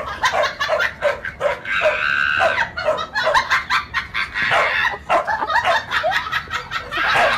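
Dog barking repeatedly in short, quick barks, several a second, with one longer drawn-out whine about two seconds in.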